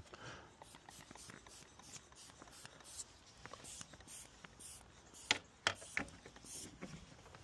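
Faint scraping and light clicking of a locksmith's car lockout tool working against a car door, with a few sharper clicks about five to six seconds in.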